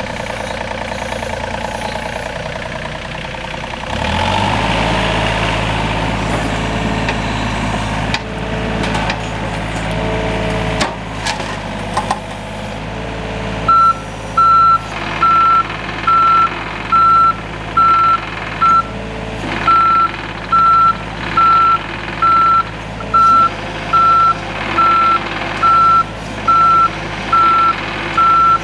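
John Deere 35D mini excavator's diesel engine running, throttled up about four seconds in, with hydraulic working noise and a few knocks. From about halfway, its travel alarm beeps steadily, about three beeps every two seconds, as the machine moves on its tracks.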